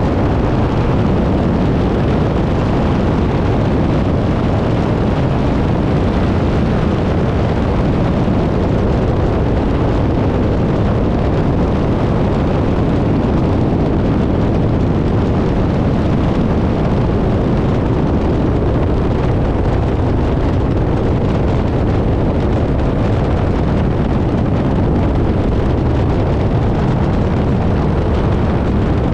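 Biplane in flight: loud, steady airflow rushing over the microphone, mixed with the drone of the engine and propeller.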